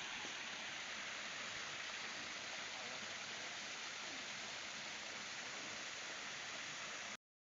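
Steady rushing of a flowing river, an even hiss without any pitch, cutting off abruptly to silence about seven seconds in.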